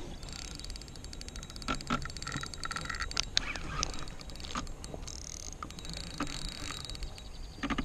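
Spinning reel being cranked by hand, its gears and bail clicking rapidly, with rubbing handling noise close to the microphone.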